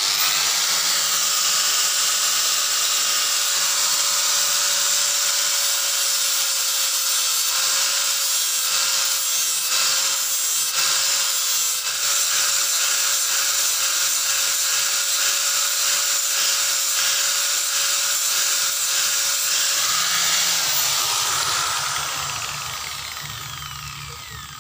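Electric angle grinder switched on and running steadily with a high whine while its disc grinds a piece of yellow PVC pipe. About 20 seconds in it is switched off and winds down, its pitch falling as it coasts to a stop.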